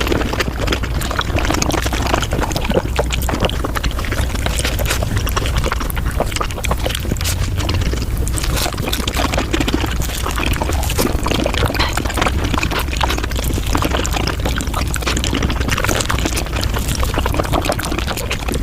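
Eating sounds from a Japanese fruit sandwich, played at five times speed: a dense, unbroken run of chewing and mouth clicks over a low hum.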